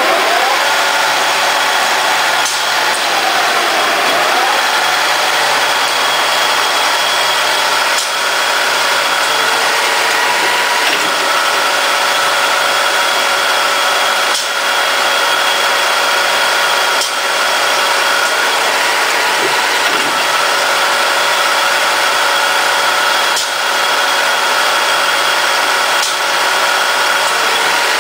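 Automatic multi-spindle metal-cutting machines running under power, with a steady whine and hum. In the first few seconds an Acme-Gridley RBN-8 multi-spindle screw machine is heard, its whine dipping and rising. Then a Hydromat rotary transfer machine runs steadily, with a light click every few seconds.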